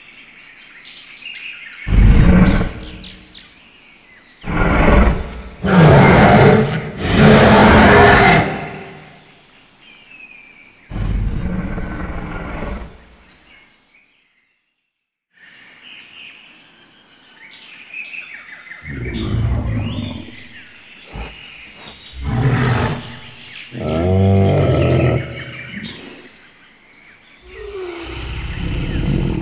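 Dinosaur roar and growl sound effects from an animated augmented-reality dinosaur exhibit: a series of loud roars, each a second or two long, with bird chirps between them. The sound drops out for a moment about halfway through.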